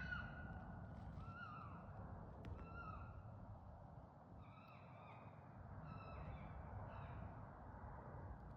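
A series of about eight short, faint animal calls with a clear pitch, some dropping in pitch at the end, coming in loose pairs and singles over several seconds.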